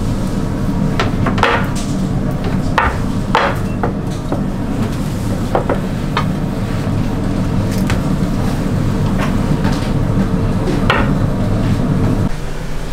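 Wooden rolling pin knocking and rolling on a wooden board as dough is rolled out, a scattering of sharp knocks. Under it a steady low machine hum runs and cuts off suddenly near the end.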